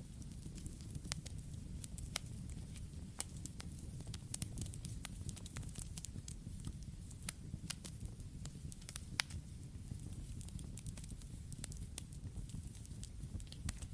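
Campfire crackling: irregular sharp pops and snaps over a steady low rumble of the flames, with one pop about nine seconds in louder than the rest.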